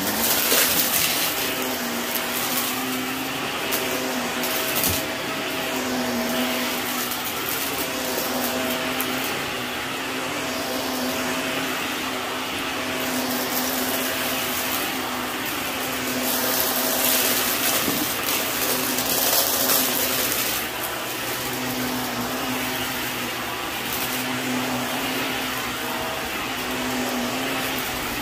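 Bagless upright vacuum cleaner running steadily over carpet and sucking up a sprinkled mix of small crunchy debris. The motor's hum wavers slightly, and a crackling hiss of debris going up the cleaner swells and fades in patches.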